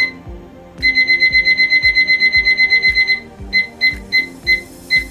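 Electronic timer beeping as it is set: a single beep, then about a second in a fast run of beeps lasting some two seconds, then single beeps about three a second. Background music with a steady beat plays underneath.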